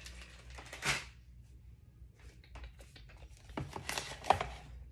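Small plastic jewelry bags and packaging rustling and crinkling as they are handled, with scattered light knocks and one sharp tap about four seconds in.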